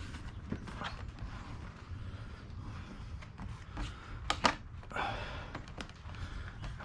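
Plastic clicks and handling noise from a replacement vanity mirror assembly being pressed into a Porsche 986 Boxster sun visor, with a sharp double click about four and a half seconds in, the loudest sound.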